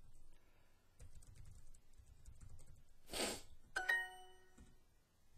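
Soft computer-keyboard typing, then, a little under four seconds in, a short rush of noise followed by Duolingo's bright correct-answer chime ringing for under a second.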